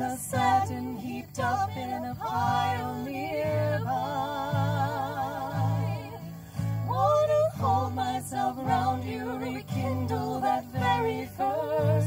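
Female vocal trio singing in harmony with two strummed acoustic guitars. The voices hold long notes with a wide vibrato from about four to six seconds in.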